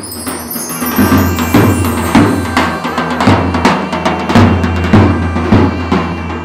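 Music with a drum kit over a steady bass line, the drums hitting about twice a second.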